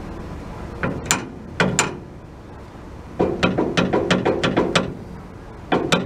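Metal clicks and clacks from a pintle hitch being worked by hand: a few single clicks, then a quick run of about ten clacks, then more clicks near the end.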